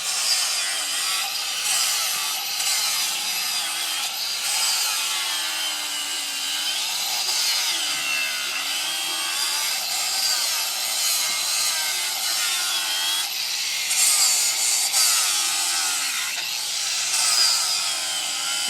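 Chainsaw cutting into wood in carving work, its engine pitch rising and falling as the chain bites and eases off.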